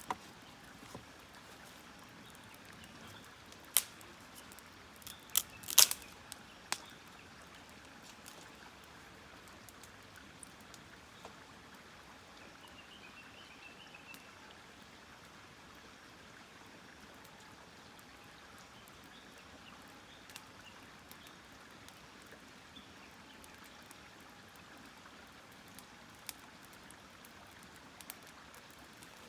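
Wood campfire burning quietly, with occasional sharp pops and crackles from the burning wood, the loudest a quick cluster about six seconds in. A few faint bird chirps sound in the background.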